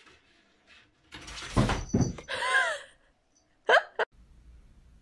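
A cat dropping from the top of a wardrobe: a loud thump and scrabble about a second in. Then come short high cries whose pitch slides up and down, one near the middle and a quick rising one near the end.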